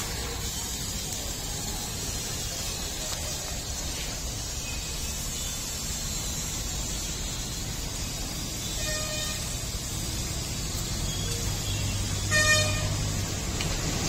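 Traffic horns honking: a faint short honk about nine seconds in and a louder brief honk about twelve seconds in, over a steady hiss and low rumble of traffic.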